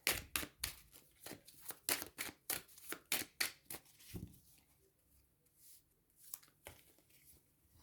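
Tarot deck being shuffled by hand, a quick run of card slaps and flicks several a second. After about four seconds it thins to a few scattered ones.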